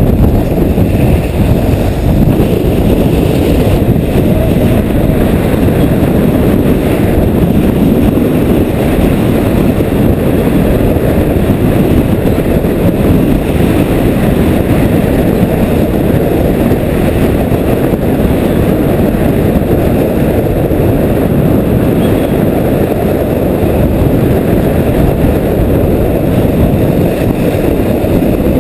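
Loud, steady wind buffeting on the microphone of a camera carried at full speed in heavy wind: a dense, low rumble with no breaks.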